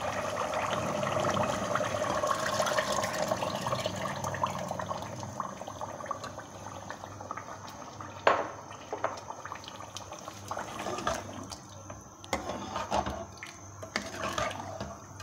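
Meat stock being poured into a pressure cooker of fried beef masala: a steady splashing pour for the first five seconds or so that then dies away. After that a metal ladle knocks against the pot several times as it is moved through the broth.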